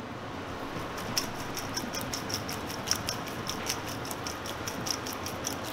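Cooked rigatoni being shaken in a metal colander over a sink to drain. From about a second in there is a run of light, irregular clicks and taps, about three or four a second, over a steady low hiss.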